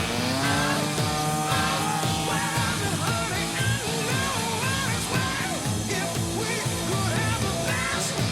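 Rock music with a sung vocal line over a steady beat.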